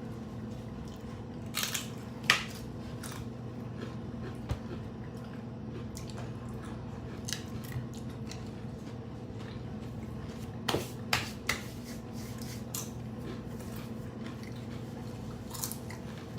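Close-up chewing and biting into crunchy hard-shell tacos, with a few sharp crunches about two seconds in, a quick cluster a little past the middle, and one near the end. A steady low hum runs underneath.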